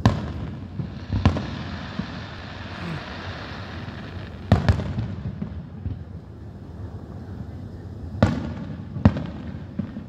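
Aerial firework shells bursting overhead: six sharp booms, each echoing. One comes at the start, one about a second in, a close pair about halfway, and two more near the end, with a steady hiss between the early bursts.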